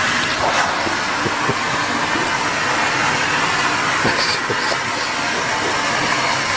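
Vacuum cleaner motor running steadily, a loud even rushing hum with a few faint clicks.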